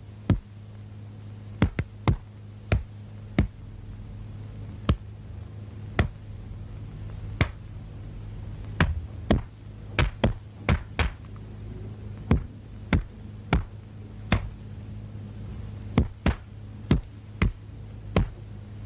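Old film soundtrack noise between narration: a steady low electrical hum with sharp clicks and pops at irregular gaps, roughly one a second.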